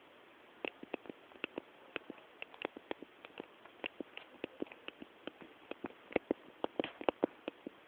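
A run of quick, sharp clicks at an uneven pace, several a second, from a pet close to the microphone. They come more thickly near the end.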